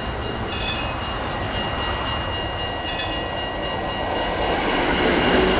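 Tram running on the rails, its noise growing louder toward the end as it draws near. Two brief high ringing notes sound, about half a second in and again about three seconds in.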